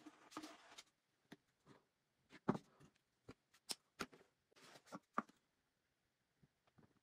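A steel scriber scratching a line around an aluminium drink can as the can is turned against it, stopping under a second in. Then a series of light clicks and knocks as the can and small tools are handled on a plywood board, the loudest about two and a half seconds in.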